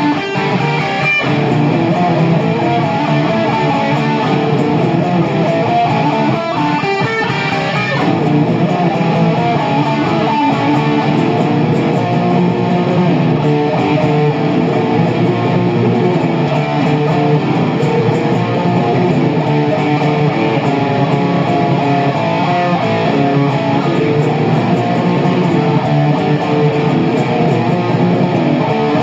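Guitar music playing steadily without a break.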